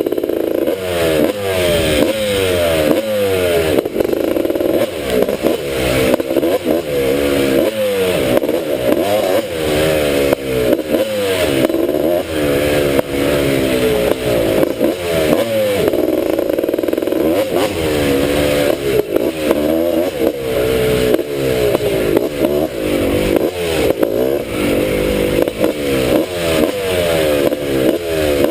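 Honda ATC250R three-wheeler's two-stroke engine being revved over and over, its pitch climbing and dropping in quick throttle blips.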